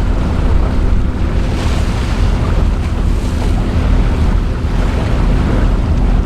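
A cruise boat underway: its engine runs with a steady low rumble under the rush of water along the hull, with wind buffeting the microphone.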